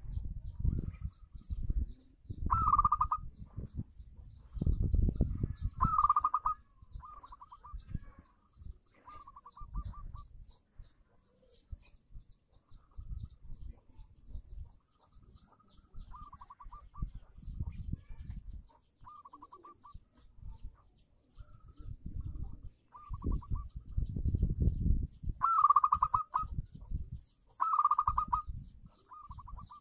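Zebra dove (perkutut) singing: short rolling trilled coos repeated every couple of seconds, loudest near the start and again near the end. Low rumbling noise comes and goes between the calls.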